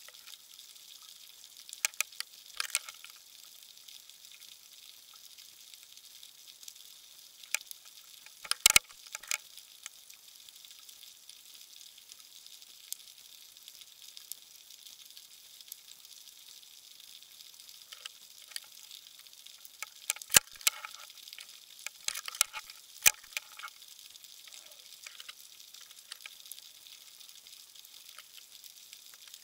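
Underwater crackle heard through the water: a steady high, fine crackling hiss with scattered sharp clicks, the loudest about nine seconds in and a burst of them around twenty to twenty-three seconds in.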